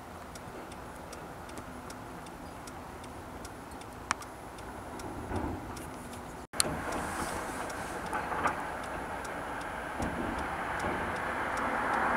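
Steady outdoor background noise, with faint, evenly spaced ticks several times a second. The sound drops out for an instant about six and a half seconds in, then comes back louder and swells near the end.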